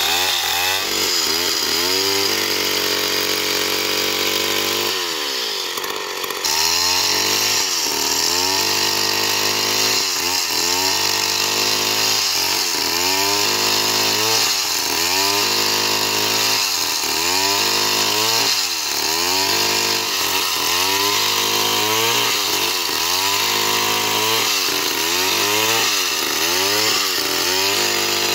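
Stihl MS 070 two-stroke chainsaw ripping lengthwise along a log. The engine pitch holds fairly steady for a few seconds, then dips and recovers about once a second as the chain bites under load.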